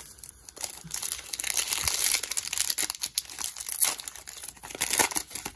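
Foil wrapper of a Revolution basketball card pack crinkling as it is torn open by hand: a dense crackle that builds about a second in and carries on for several seconds.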